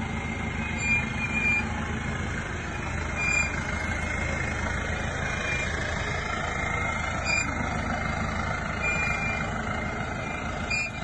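Offroad pickup truck's engine idling steadily, a continuous low hum.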